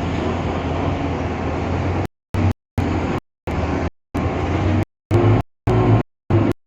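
Irisbus Citelis CNG city bus with its Iveco Cursor 8 gas engine running, a steady drone with a low hum. From about two seconds in, the whole sound cuts out to silence again and again in short gaps, about seven times.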